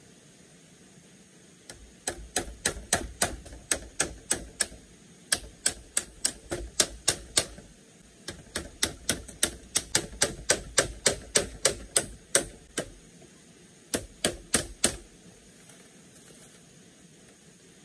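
Hammering on a split-bamboo floor, driving nails through the slats into the bamboo frame: four runs of quick, sharp knocks, about three a second, with short pauses between them.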